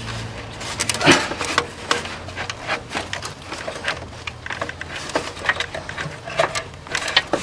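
Irregular clicks, knocks and rattles of a part being pushed and wiggled into place by hand in a car's engine bay, over a faint low hum.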